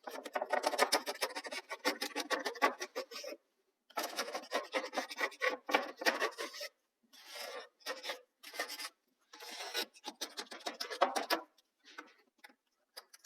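Dried wood glue being scraped off a glued-up wooden panel, a rough scratchy rasping in runs of strokes with short pauses between.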